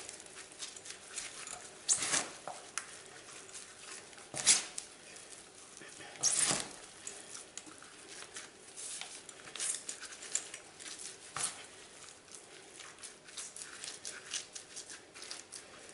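Damp potting compost being scooped and pressed into a soil-block maker with gloved hands: irregular scraping and rustling of wet soil against the tool and the metal tray, with louder scrapes about two, four and a half and six and a half seconds in.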